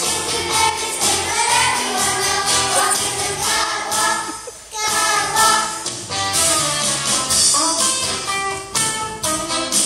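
Children's choir singing a song together, with a brief drop in level about halfway through.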